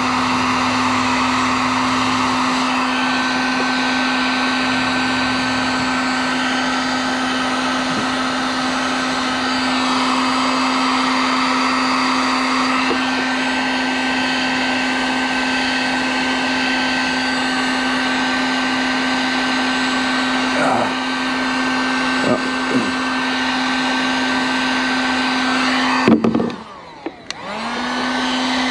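Handheld electric heat gun running steadily with a fan-motor whine, melting HDPE plastic into a hole in a plastic kayak hull. A few faint clicks come a little past the middle, and near the end the gun cuts out briefly, winding down and spinning back up.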